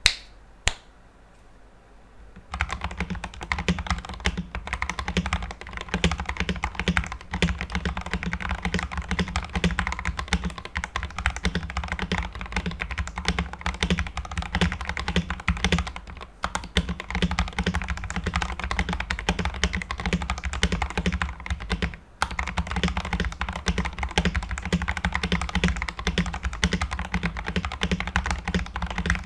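Typing on a Tester68 (KBM68) custom mechanical keyboard with lubed Outemu Red linear switches, band-aid-modded stabilizers and PBT keycaps. Two single key clacks come in the first second, then fast continuous typing starts about two and a half seconds in, broken by two brief pauses.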